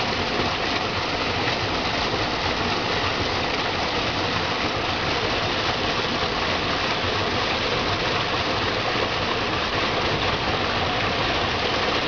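Small waterfall pouring into a rock pool: a steady, unbroken rush of falling and splashing water.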